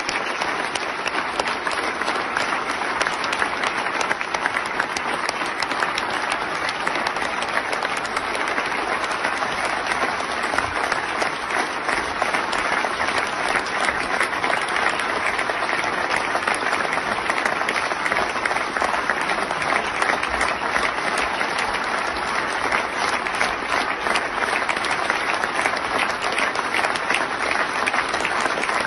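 A large crowd applauding: dense, steady clapping that keeps up without a break, a long ovation.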